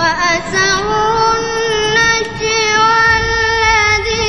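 A young boy's high voice chanting Quran recitation in long, drawn-out melodic notes that waver slightly in pitch.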